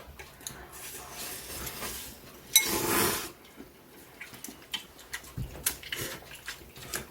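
Eating utensils clicking and clinking against bowls of ramen during a meal. About two and a half seconds in there is a brief, louder burst of noise.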